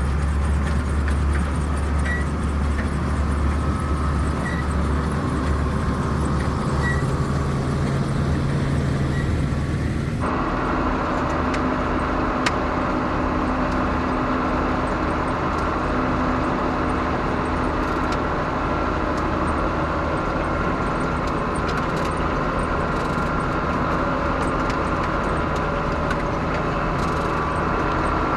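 1976 John Deere 6600 combine running steadily under load, its six-cylinder diesel engine and threshing machinery droning without a break. About ten seconds in the sound changes abruptly, from a deep low rumble to a higher, busier machine hum.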